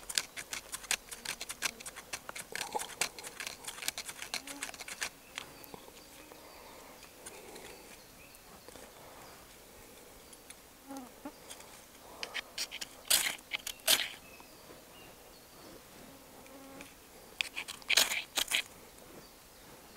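Knife blade scraping tinder on top of a stump: a quick run of short scrapes for about five seconds, then a few louder, harsher strikes about two-thirds of the way through and again near the end, the last ones setting the tinder alight.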